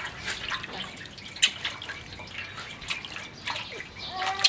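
Bath water dripping and splashing, with a few sharp separate drips.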